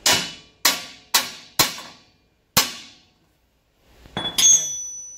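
Hammer blows on steel suspension parts under a truck: four sharp strikes about half a second apart and a fifth a second later, each ringing briefly. Near the end, a clanking metal hit leaves a high ring hanging.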